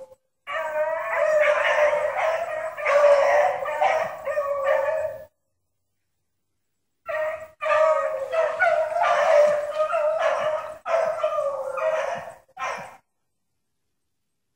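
Hounds baying in full cry on the track of a hare, in two long stretches of overlapping, drawn-out calls with a break of about two seconds between them, stopping a little before the end.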